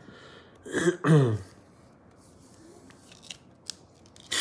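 A man's short murmured vocal sound, falling in pitch, about a second in, then a couple of faint clicks and a brief rustle near the end.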